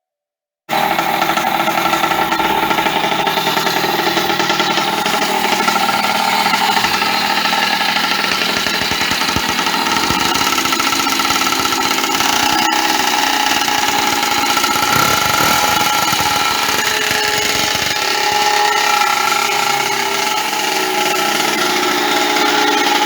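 Small kart engine running steadily, cutting in abruptly about a second in.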